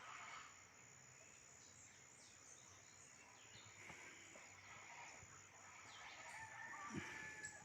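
Faint, distant chorus of chachalacas (guacharacas) calling, with other scattered bird calls and a steady high thin tone behind them.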